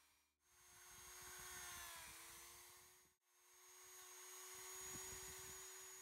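Dremel 3000 rotary tool running at high speed, a steady whine as its carving bit cuts into wood. It comes in two stretches that each swell and fade, with a short break about three seconds in, and the pitch dips slightly about two seconds in.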